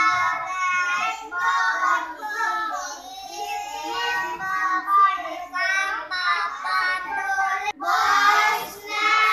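A class of young children reading aloud together in unison, chanting the words in a sing-song way in short phrases with brief pauses between them.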